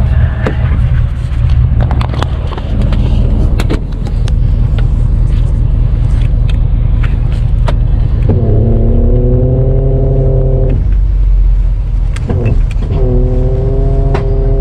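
Tow truck engine running with a steady low drone, with small rattles and clicks over it. Twice, a higher whine rises and holds for about two seconds before cutting off.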